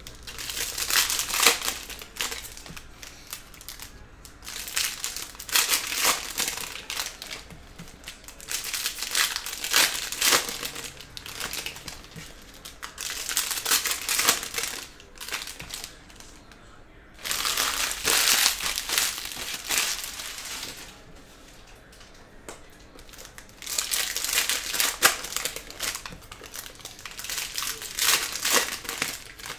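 Foil trading-card pack wrappers crinkling as they are handled and opened, in bouts of a few seconds with short lulls between.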